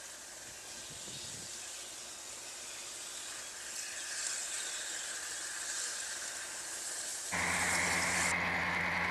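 Moving train heard from an open coach window: a steady rushing hiss. About seven seconds in it changes suddenly to a louder, steady low drone.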